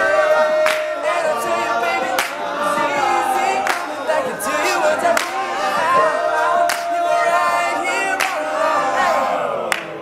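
All-male a cappella group singing sustained close harmony, with a sharp vocal-percussion hit about every three-quarters of a second keeping the beat.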